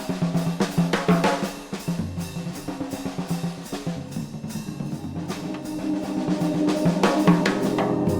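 Background music with a steady drum-kit beat over sustained low tones, growing a little louder toward the end.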